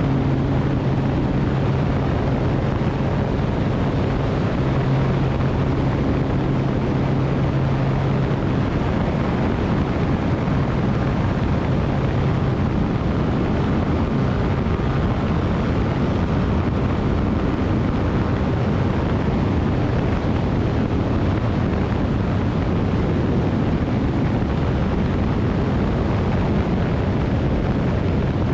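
Engine running steadily under heavy wind noise on the microphone, its steady low hum fading out about halfway through.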